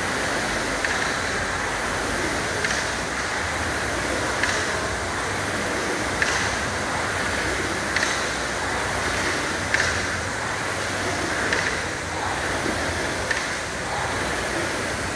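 Air rowing machine's fan flywheel whirring in a steady whoosh under hard rowing, with a short click and a slight surge about every two seconds, once per stroke.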